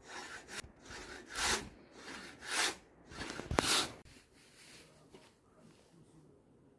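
Hand saw cutting timber in steady back-and-forth strokes, about one a second, stopping about four seconds in.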